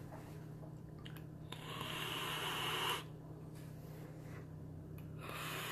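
A person draws a long breath through a vape mod's rebuildable atomizer fired at 80 watts: an airy hiss of about a second and a half, starting about a second and a half in. A shorter breath out follows near the end.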